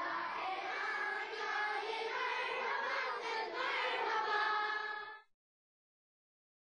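A group of children singing together in chorus, cut off abruptly about five seconds in.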